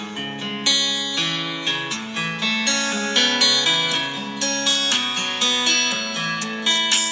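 A Xiaomi 12X phone ringtone: a plucked, guitar-like melody with a note about twice a second.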